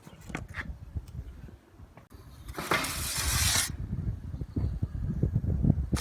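Wind buffeting the microphone as a low rumble, with a few light clicks early on and a brief loud hiss about halfway through.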